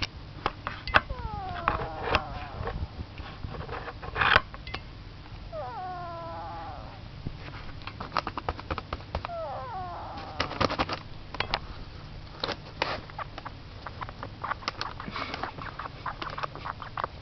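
Duck snoring: several short pitched notes, each falling in pitch, a few seconds apart, among many small clicks and ticks.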